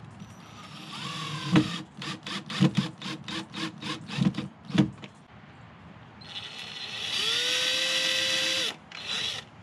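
Cordless drill working into the wooden frame of a rabbit hutch. It starts with a rising whine about a second in, then runs in a string of short stuttering bursts for a few seconds. After a pause it makes one steady run of about two and a half seconds that spins up at the start, and ends with a brief last burst near the end.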